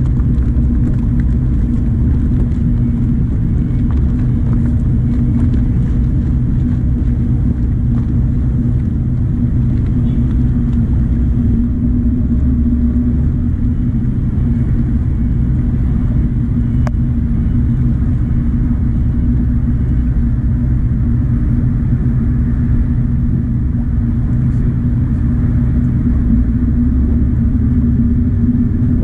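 Fishing boat's engine running steadily under way, a constant low drone with a steady hum.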